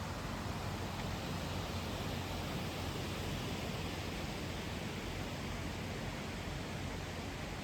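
Steady outdoor rushing noise with a faint low hum underneath and no distinct events.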